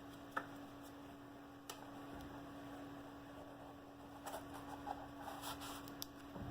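Faint steady electrical hum with a few small clicks, then soft handling rustles and taps a few seconds in, as a watch box and its papers are handled.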